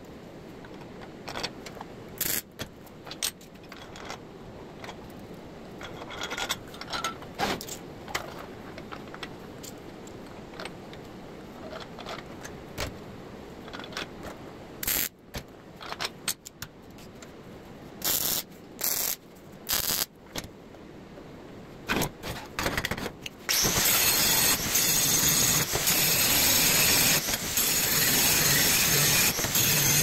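Steel parts handled on a steel welding table: scattered clinks, knocks and scrapes of flat bar and gussets being fitted. About 23 seconds in, a welding arc strikes and crackles steadily.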